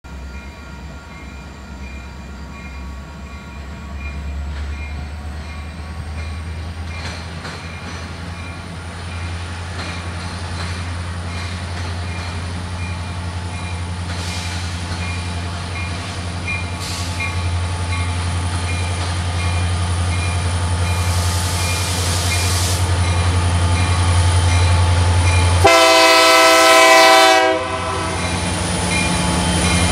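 Two EMD SD70M diesel locomotives hauling a freight train approach, their engine rumble growing steadily louder. Near the end the lead locomotive sounds one loud horn blast of about two seconds.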